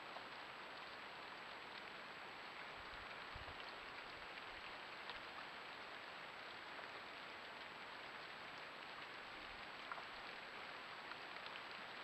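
Steady light rain pattering with scattered faint drop ticks, heard through a trail camera's small microphone.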